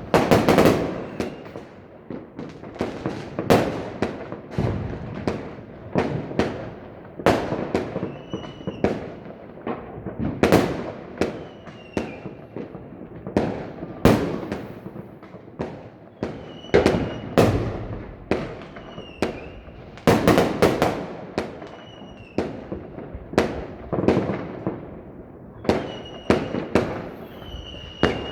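Aerial fireworks shells bursting one after another, a sharp bang every second or so, each trailing off in an echo.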